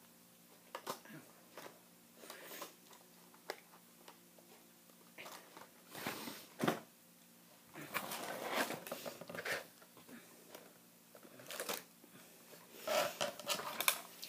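Scattered rustling and clicking handling noises close to the microphone, in irregular bursts with longer rustles about eight seconds in and near the end.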